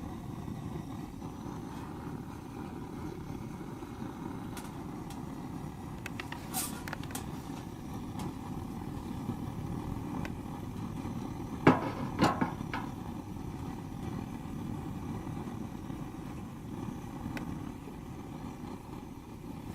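Wood fire crackling: a steady low rumble with scattered sharp pops, including a loud cluster of three about twelve seconds in.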